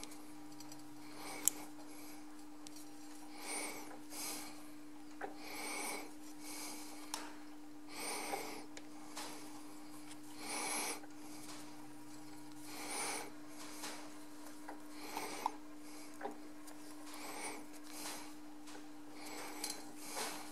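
Spring wire rasping as it is drawn off a guide on the toolpost and wound onto a mandrel in a lathe chuck turned by hand, forming an exhaust valve spring. There is a rasping stroke about every two seconds, with a few sharp clicks between them.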